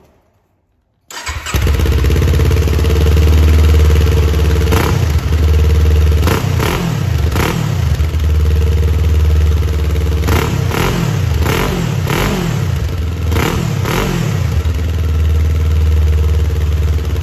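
Kawasaki Z400's parallel-twin engine running through an SC Project slip-on exhaust with its silencer insert still fitted. The engine cuts in abruptly about a second in, then idles with about ten quick throttle blips in the middle, each revving up and dropping back to idle.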